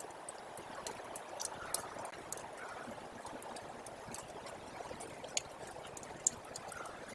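Snowmelt water trickling steadily and faintly as the snow thaws, with scattered small sharp ticks over it.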